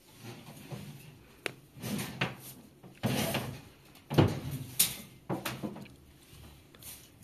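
Irregular knocks, bumps and scraping of things being handled and set down, with the sharpest knocks a little past the middle.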